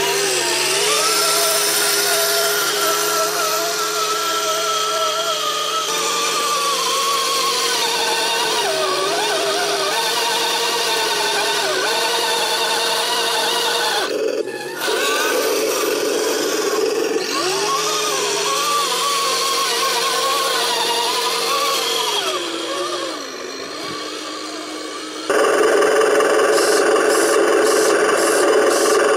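Radio-controlled 6x6 truck's electric drive whining as it crawls through snow, the pitch holding steady, then dipping and rising with the throttle. Near the end it turns louder and rougher, with a regular pulsing.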